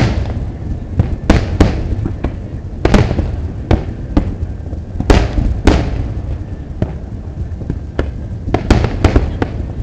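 Fireworks going off in quick succession: a dozen or more sharp bangs, several a second at times, each followed by a rolling echo, over a continuous low rumble.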